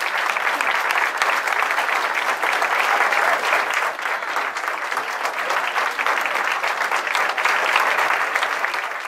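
Large audience applauding: dense, steady clapping that carries on without a break.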